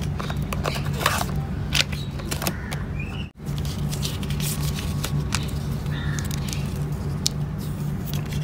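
Paper instruction leaflets being unfolded and handled, rustling and crinkling in irregular crackles, over a steady low hum. The sound cuts out for an instant about three seconds in.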